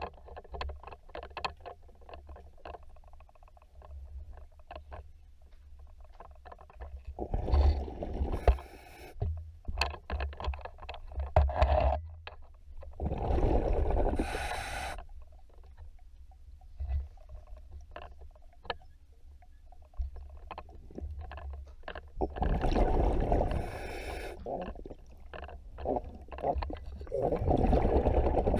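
Scuba diver breathing underwater: the regulator vents exhaled bubbles in four long, noisy bursts several seconds apart, over a steady low underwater rumble with scattered small clicks.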